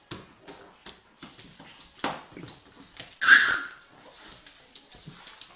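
A pug making short, repeated sounds as it tugs at a crawling baby's pyjama leg, with one louder sound about three seconds in.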